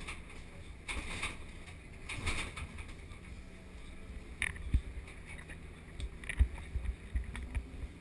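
Komatsu PC2000 hydraulic excavator's diesel engine running steadily, heard from inside the cab, while the bucket digs into blasted rock. Scattered knocks and clunks of rock against the bucket come through, the loudest about six and a half seconds in.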